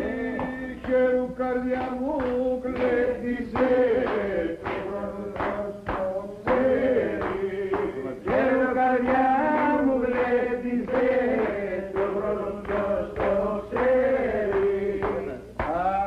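Men singing a Greek folk song with hand clapping, over a steady instrumental drone.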